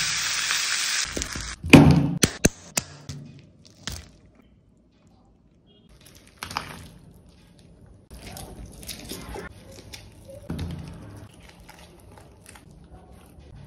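Hot oil sizzling at first, then a few sharp cracks about two seconds in. Later, crisp skin of a deep-fried whole chicken crackling and tearing as it is pulled apart by hand.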